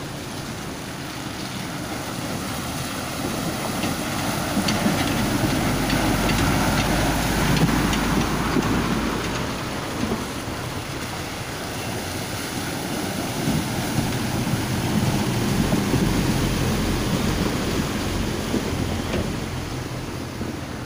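Heavy dump trucks driving past one after the other, a low engine rumble with the hiss of tyres through muddy standing water. The noise swells twice, first about a third of the way in and again past the middle, as each truck goes by.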